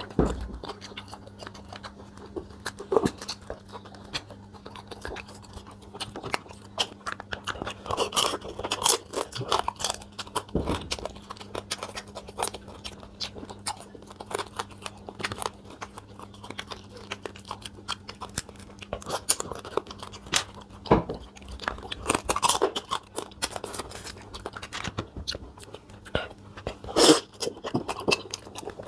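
Close-up eating of a seafood boil: steady chewing with wet mouth sounds and irregular crunching and crackling of crab shell, with a few louder cracks scattered through.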